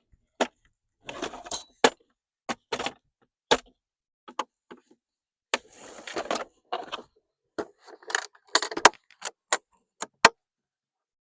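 Metal hand tools clinking and clattering as they are picked up and put away: a socket set and channel-lock pliers being handled. Irregular sharp clicks and short rattles, some louder clacks near the end.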